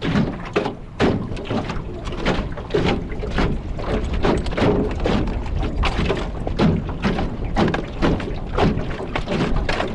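Wind-driven choppy waves slapping irregularly against a small floating fishing craft, with gale-force wind buffeting the microphone as a steady low rumble.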